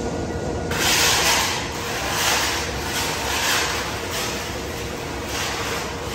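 A steel spreading blade scraping across a concrete floor as it spreads a white floor coating, in repeated rasping strokes about one a second, over a steady background hum.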